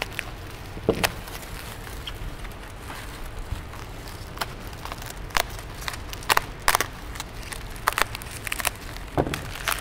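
Bubble-wrap packaging crinkling and crackling in irregular sharp snaps as it is pulled and cut open by hand, busier in the second half.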